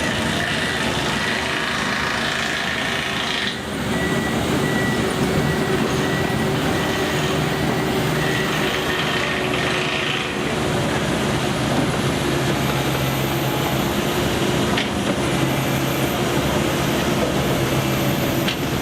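Construction machinery running steadily, a continuous engine hum under broad mechanical noise, with a short dip about three and a half seconds in.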